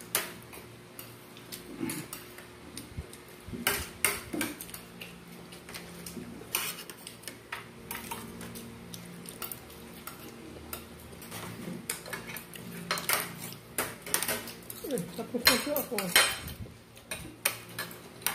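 Metal fork and knife clinking and scraping against a plate while cutting and picking up food, in scattered sharp clinks that come more often in the last few seconds.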